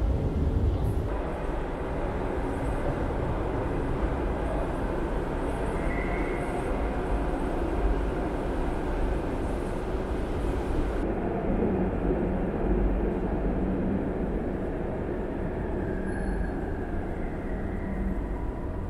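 Steady low rumble and hiss of an underground metro station's background noise, shifting slightly in tone about a second in and again about eleven seconds in.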